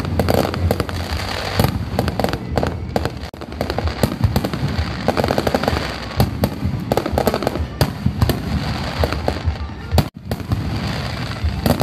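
Aerial firework shells bursting in a continuous barrage, overlapping bangs and crackle, with music underneath. The sound drops out sharply for a moment about ten seconds in.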